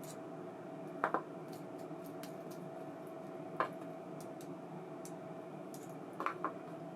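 A few light, sharp clicks and taps of small parts being handled (a double tick, a single one, then another double), over a steady faint hum.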